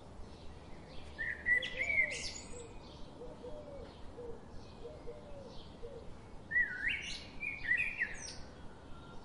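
Birds singing: two loud song phrases of rising and falling notes, about a second and a half in and again about five seconds later. Softer, lower repeated notes come between them, over faint chirping that runs throughout.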